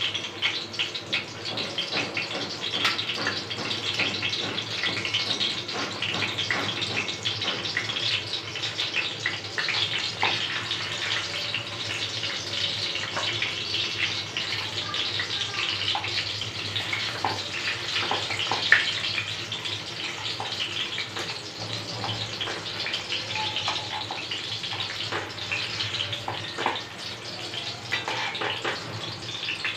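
Skewered chicken kababs shallow-frying in hot oil in an aluminium pan: a steady sizzle with dense crackling, and one sharper pop about two-thirds of the way through.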